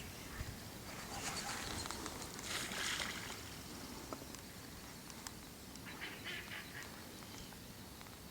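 Ducks quacking in a few short, fairly faint bursts: about a second in, again around three seconds in, and once more near six seconds.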